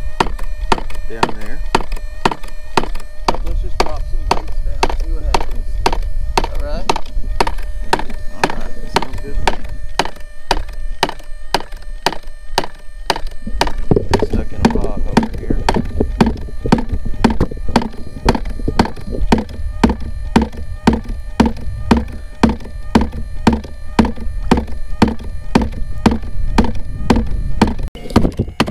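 Battery-powered DIY fish thumper made of scrap aluminum running, knocking in a steady rhythm of about two thumps a second to draw white bass under the kayak.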